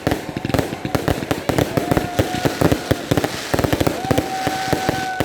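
Fireworks display: a dense, rapid run of crackling bangs and pops, with long whistles held on one pitch that drop away as they end, one about two seconds in and another near the end.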